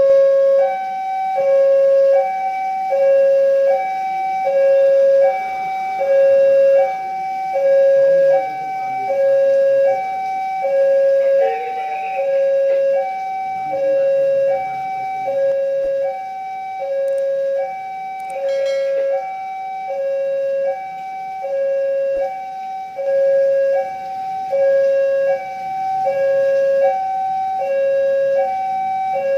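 Electronic warning alarm of a railway level crossing, sounding an even two-tone signal that switches between a lower and a higher pitch about once a second while the barrier is down for an approaching train.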